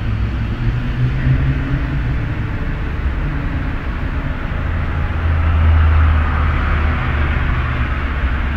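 City garage ambience: a steady low rumble of car engines, with one vehicle growing louder and passing close about halfway through.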